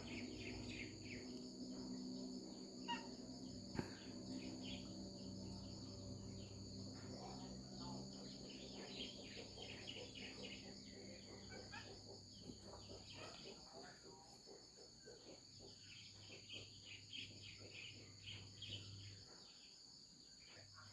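Crickets chirping in a faint, steady, high-pitched chorus, with a low hum in the background that fades in and out and a couple of soft clicks about three to four seconds in.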